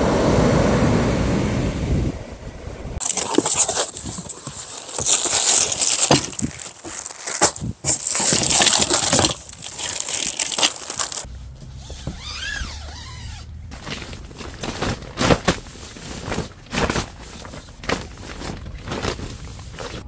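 Surf breaking on a sandy beach for the first two seconds. Then a loud crackling rustle of plastic wrapping and cardboard as gear is pulled out of a box. From about eleven seconds in, a run of short sharp clicks and clinks of small gear being handled.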